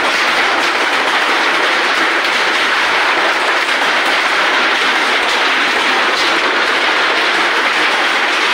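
A hailstorm: heavy rain mixed with falling hailstones, a loud, steady hiss thick with small ticking impacts.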